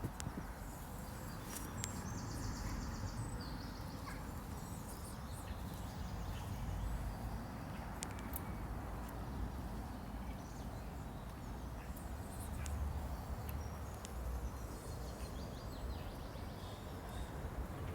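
Outdoor nature ambience: a steady low rumble and hiss, with birds chirping a few times high up and scattered small clicks.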